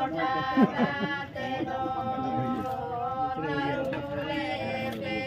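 Voices singing a slow, chant-like traditional song with long held notes.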